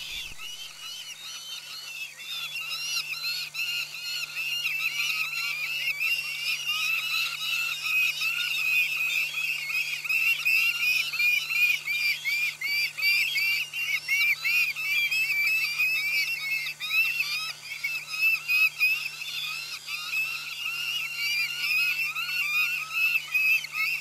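Saker falcon chicks begging for food at the nest as the adult arrives with prey. It is a shrill chorus of rapid, repeated calls, each note arching up and down, several every second.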